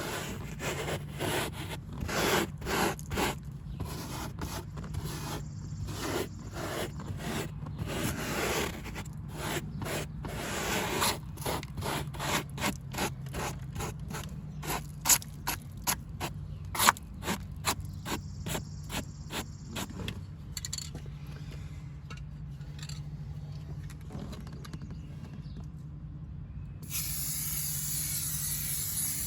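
Nylon toothbrush scrubbing aerosol carpet dye into truck carpet, a quick run of rubbing strokes that eases off past the middle. Near the end, a hiss of spray from the aerosol dye can for about two seconds.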